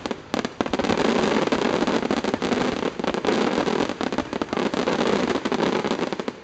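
Fireworks display: a dense, rapid run of crackling and popping from bursting shells, with a brief lull just after the start and another near the end.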